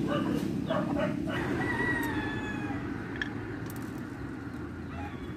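A rooster crowing once, a long call that falls slightly in pitch, over a steady low rumble.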